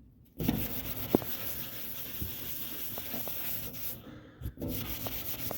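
Brillo pad scrubbing a stainless steel grill surface to lift rust spots, a steady rough scouring with a short break about four seconds in.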